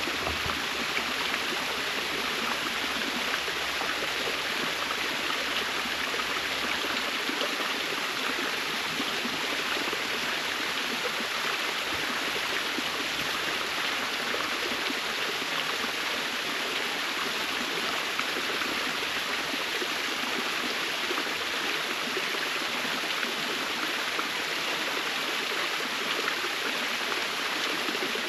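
Waterfall: water falling and splashing in a steady rush that never lets up.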